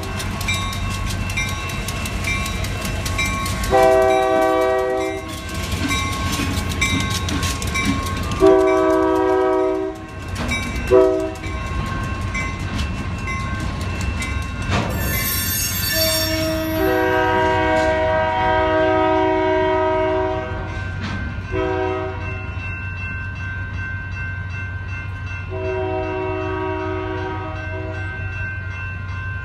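Union Pacific freight locomotive horn sounding repeated blasts, long and short, about seven in all. They come over the rumble and clickety-clack of empty center beam cars rolling over the crossing. Under them the crossing's electronic bells ring steadily, and the car clatter thins out in the second half while the horn keeps sounding.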